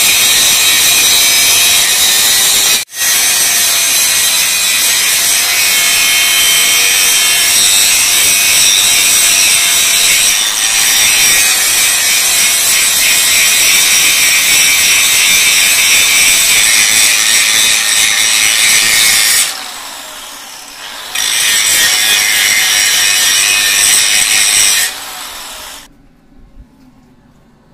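A Hi-Max 5-inch angle grinder running with its disc against steel, grinding a weld on a box-section frame corner flush: a loud, steady grinding with a high whine. It drops off briefly twice and stops near the end.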